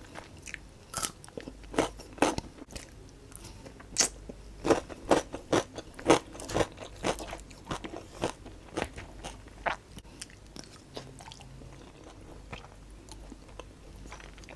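A person chewing and crunching food close to a clip-on microphone, with many irregular wet mouth clicks, and a wooden fork scraping a plastic tray.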